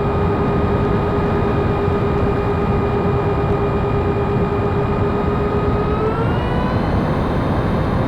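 Twin 70mm six-blade electric ducted fans running with a steady whine over a rush of air, the pitch rising a little about six seconds in as the throttle is opened.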